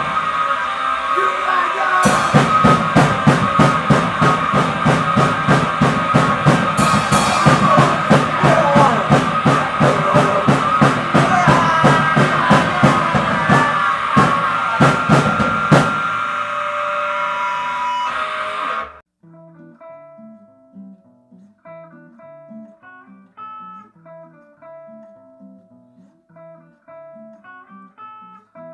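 Grind/noise band music: a loud, noisy wall of guitar with fast, dense drumming that cuts off suddenly about two-thirds of the way through. Quiet picked acoustic guitar notes follow.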